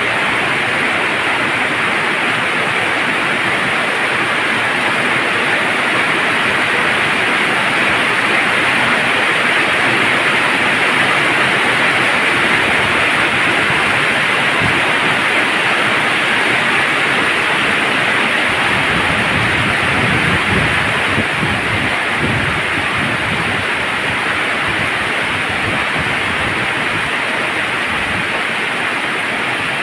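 Heavy tropical rain falling steadily on a wet road and grass, a dense even hiss. A deeper rumble rises under it for a few seconds about two-thirds of the way through.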